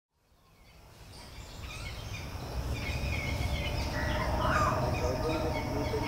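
Outdoor ambience fading in over the first few seconds: several birds chirping and calling over a steady low rumble.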